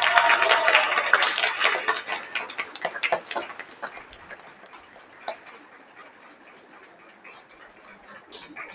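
Audience clapping after a song, dense at first and thinning out to a few scattered claps by about four seconds in.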